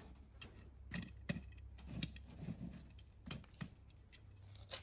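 Iron forge tongs clicking and clinking against the coals and horseshoe in a coal forge fire, with about eight irregular sharp taps over a low steady hum.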